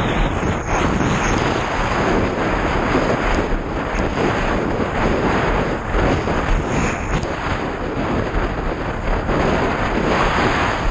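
Wind buffeting the microphone of a mast-mounted camera on a windsurf rig sailing at speed, mixed with the rush of water and spray off the board. A loud, steady rushing noise with no pauses.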